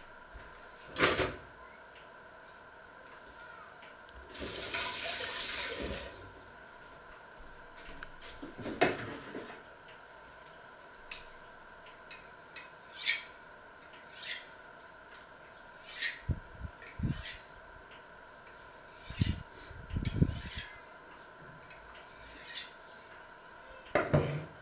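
Scattered clinks and knocks of dishes and utensils being handled, with a short hissing rush about five seconds in.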